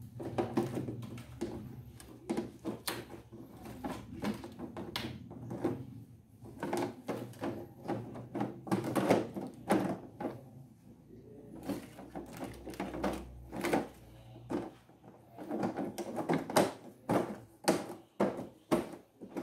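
Plastic front bezel of an LCD TV being pressed down and snapped onto the panel: an irregular run of clicks and knocks as its clips seat along the edges.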